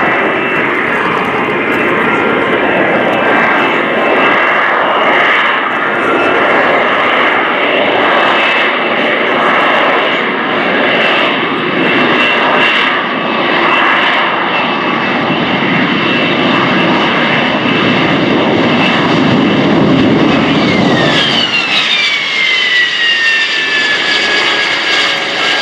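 AV-8B Harrier II's Rolls-Royce Pegasus turbofan running loud: a dense jet roar with a steady high whine over it. About 21 s in the roar drops and the whine falls in pitch as the engine is throttled back.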